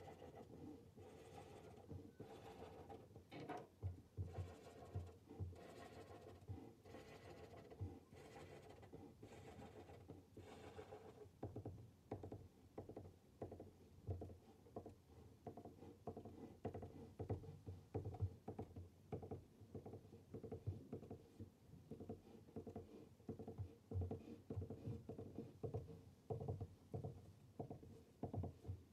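Fine-tip felt pen on paper: faint, irregular short taps and scratches as small dots and circles are drawn.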